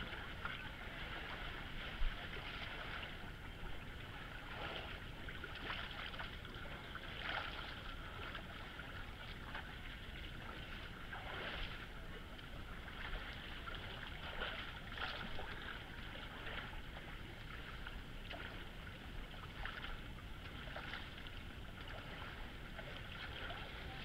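People wading and splashing through a shallow, rocky creek, with irregular splashes over the steady rush of the water, and a sharp knock about two seconds in.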